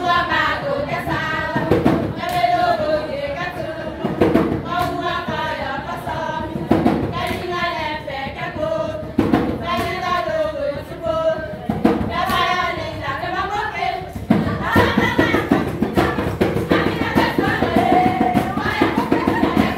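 A group of voices singing together over a drum beat. About fourteen seconds in, the drumming turns faster and denser and the singing falls back.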